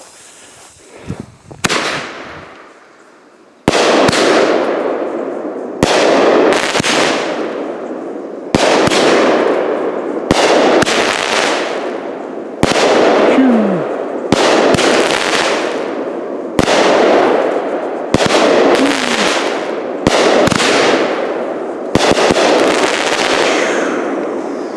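A 200-gram consumer fireworks cake, 'Big and Bad', firing its shots. After a few small pops, a string of sharp bangs begins about four seconds in, one every second and a half to two seconds, each followed by a long fading crackle.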